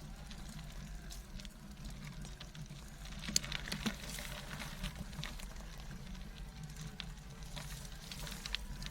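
Tandem bicycle tyres rolling slowly over loose gravel: a steady low rumble with scattered crackling and ticking of stones.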